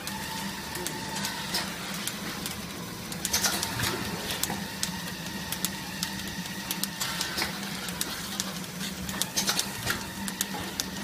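Automatic plastic cup packing machine running: a steady motor hum with frequent, irregular mechanical clicks and clatters as the stacked plastic cups are fed along.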